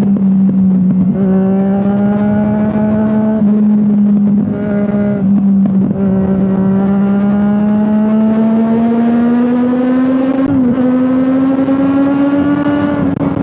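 Triumph Daytona 675's three-cylinder engine pulling on the move, heard from a microphone on the bike. It holds a steady note that climbs slowly, with a brief dip about ten and a half seconds in.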